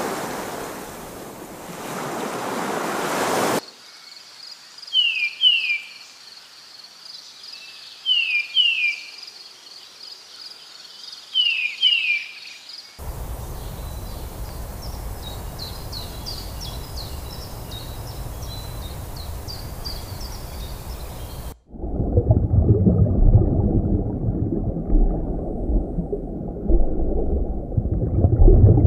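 A run of nature sound clips. It opens with ocean surf. Then comes a quiet stretch with three pairs of short, downward-sliding bird chirps. Then an outdoor ambience with many small high chirps. It ends in a loud, low rushing noise that cuts in suddenly about three-quarters of the way through.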